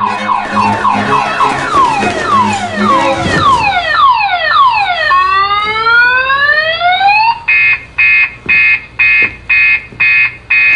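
Car-alarm-style siren from an alarmed plastic food container. It cycles through repeated falling whoops, then a few rising sweeps, then a loud on-off beep about twice a second for the last few seconds.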